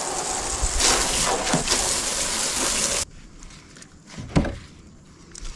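Water spraying from a hose onto a wooden cleaning table, a steady hiss that stops abruptly about three seconds in. Then a single sharp thump as a crappie is set down on the wet wooden board.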